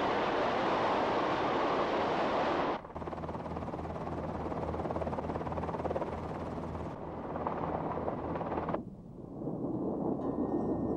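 Offshore tin-mining dredge: a loud, rushing stream of waste slurry pouring into the sea, then heavy machinery running with a low steady hum. The sound changes abruptly about three seconds in and again near the end.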